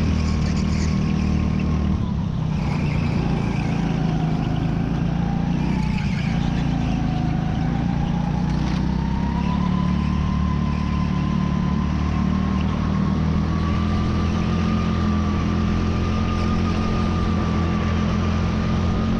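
Go-kart engine running at speed, heard from a camera mounted on the kart. Its whine drops about six seconds in as the kart slows for a bend, then climbs steadily as it accelerates.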